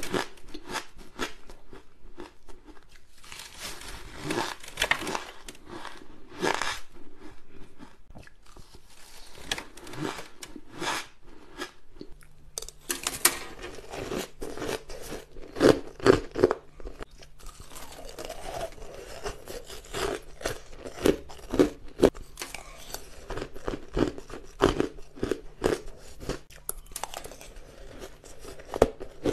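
Shaved ice being bitten and chewed close to the microphone: a run of sharp, irregular crunches. About 13 seconds in the recording changes, and a faint steady low hum sits under the crunching.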